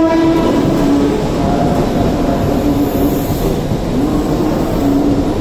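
Mumbai AC EMU suburban electric train rolling past at close range as it pulls into the platform: a loud, steady rumble of wheels and running gear, with a low hum that comes and goes.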